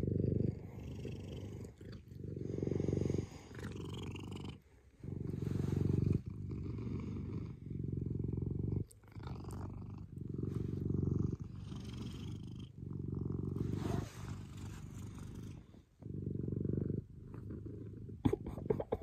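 Domestic cat purring right against the microphone, a low rumble that swells and fades with each breath about once a second, the sound of a contented cat.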